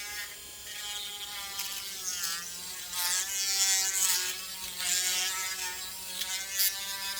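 Small electric rotary tool buzzing steadily as it grinds out the hole in a plastic neck socket. Its pitch sags briefly about two seconds in as the bit bears on the plastic, with harsher grinding from about three seconds in.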